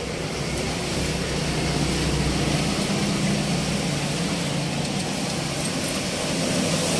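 Steady road traffic noise from a busy highway: a vehicle's low engine rumble swells about a second in and eases off, over an even hiss of tyres and rain.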